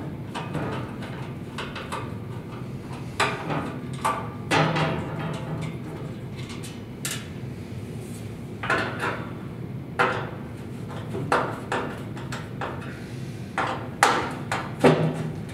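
Scattered metal knocks and clanks from a hand tool working at the lower cabinet panel of a Delta band saw's stand, as the panel is taken off to reach the drive belt. The hits come singly and in quick pairs, the sharpest near the end.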